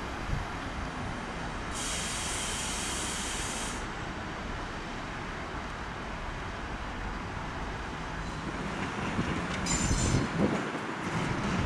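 ÖBB Cityjet electric commuter train running slowly through the station with a steady rumble. About two seconds in there is a hiss of air lasting about two seconds. Near the end the rail noise grows louder, with brief high squeals.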